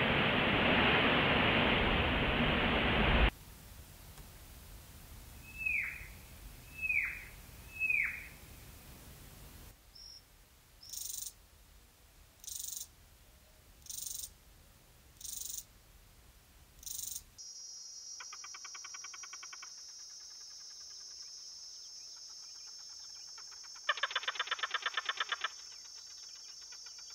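A sequence of Namib desert field recordings. First a few seconds of rushing desert wind over sand. Then a bird gives three falling whistled calls about a second apart, an insect makes six short high buzzy chirps about every one and a half seconds, and finally a steady high insect drone runs under two bursts of rapid clicking trills, the second one louder.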